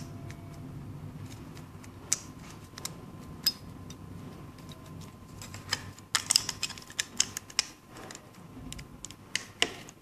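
Light plastic clicks and rattles from a small garage remote-control case being handled and snapped back together over its circuit board. The clicks are scattered, with a busier run of them about six seconds in.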